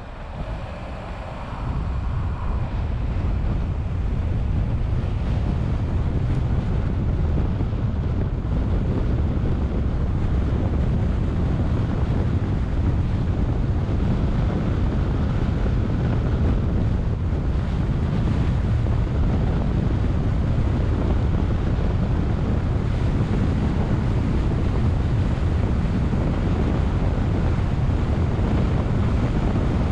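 Wind buffeting the microphone of a camera on a moving car, over a steady low rumble of the car and its tyres on the road. It grows louder over the first couple of seconds as the car picks up speed, then holds steady.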